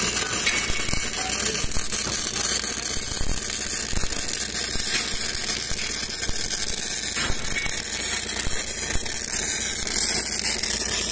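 MIG welding arc (CO2-shielded gas metal arc welding) burning continuously as a bead is run on steel plate: a steady hiss with fine crackle that does not let up.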